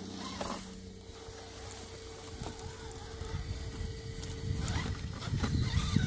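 Whine from a 1/10-scale RC rock crawler's sensored brushless motor and drivetrain as it creeps over creek-bed rocks, with a steady thin tone that stops about five seconds in. Scattered small knocks of tyres and chassis on rock grow into louder rumbling and scuffing over the last couple of seconds.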